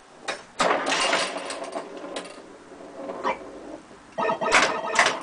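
Electronic sound effects from a 1978 Bally Star Trek pinball machine's sound board: rough, buzzing noise bursts, the first starting about half a second in and fading out slowly, then shorter hits and another burst near the end.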